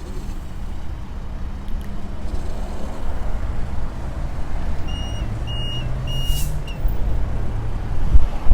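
Steady low rumble of vehicles, with four short, high electronic beeps in quick succession about five seconds in and a brief hiss among them.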